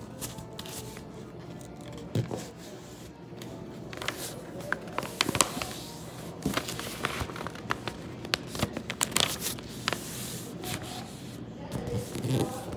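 A sheet of paper being folded and creased by hand: crinkling and rustling with many short, crisp clicks as the folds are pressed flat, busier in the second half.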